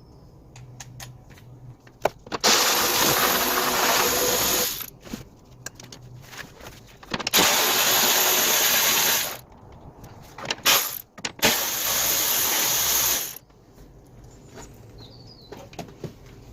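A power tool runs in three steady bursts of about two seconds each, undoing the three 10 mm bolts that hold the door glass to the window regulator, with small clicks and handling noises between the bursts.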